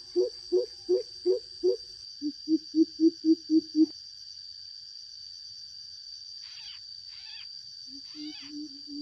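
Coucal lure call: deep, hollow hoots in series, about three a second, then a faster, louder run of hoots ending about four seconds in, and softer hoots starting again near the end. A steady high-pitched drone runs underneath, and a few short descending chirps come in the gap.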